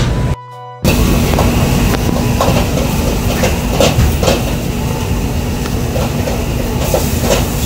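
Commercial gas wok range and kitchen extractor running with a loud steady rushing noise, with a metal ladle clinking and scraping irregularly against a wok during stir-frying. The sound cuts out briefly about half a second in.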